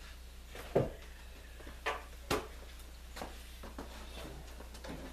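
A few short, sharp knocks and taps, three of them within the first two and a half seconds, as wood is handled along the edge of a cedar-plank canoe hull, over a steady low hum.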